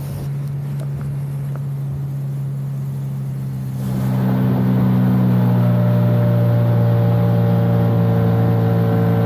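Small outboard motor running steadily as the boat moves along. About four seconds in the throttle is opened: the motor gets louder and slightly higher in pitch, then holds steady.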